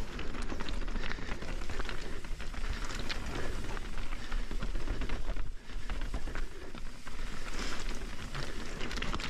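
Mountain bike riding fast down rocky singletrack: tyres crunching and rattling over wet rocks and gravel, with steady clatter from the bike, easing briefly about five and a half seconds in.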